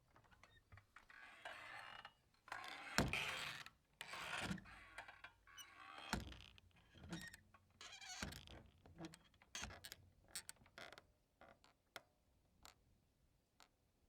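Saloon-style swinging doors creaking on their hinges and knocking as they swing back and forth. The loudest knocks come about three, six and eight seconds in, then smaller clicks grow fainter as the doors settle.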